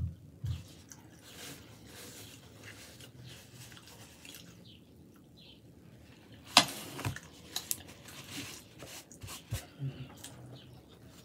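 Close-miked chewing of a mouthful of burger, soft, wet mouth sounds with a few smacks. A sharp click about two-thirds of the way through is the loudest sound, followed by several smaller clicks.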